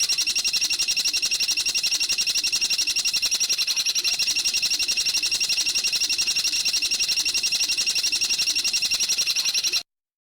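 A bird's rapid, even trill of roughly fifteen notes a second, held without a break for nearly ten seconds and cut off abruptly near the end, as in a looped masteran training call.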